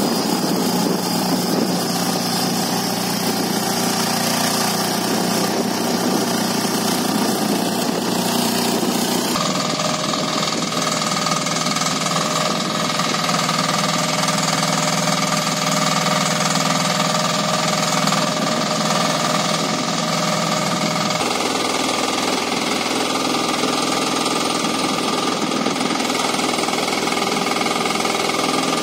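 Single-cylinder air-cooled engine of a Breckner mini excavator running steadily with a knocking beat. Its sound changes abruptly twice, about nine and twenty-one seconds in.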